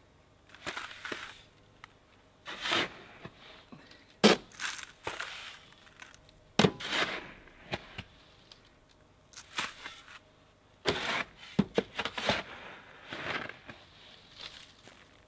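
Steel shovel scraping into sand and tipping it into a plastic bucket, a scoop and pour every second or so, with a couple of sharp clacks of the blade about four and six and a half seconds in.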